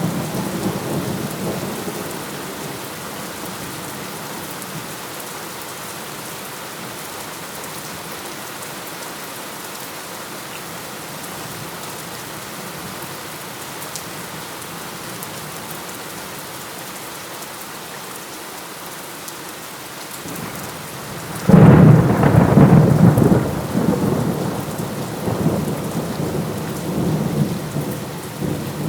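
Steady rain falling, with thunder: a low rumble dies away in the first couple of seconds, then a sudden loud thunderclap about three-quarters of the way through rolls on in waves to the end.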